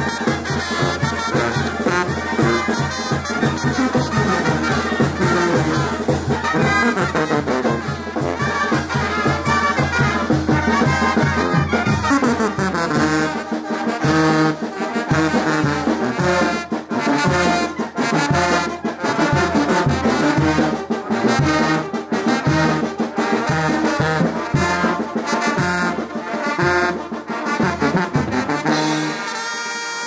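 Mexican village wind band (banda) playing a dance tune: brass melody over a pulsing bass line from two tubas, with a regular drum beat. The playing drops away about a second before the end.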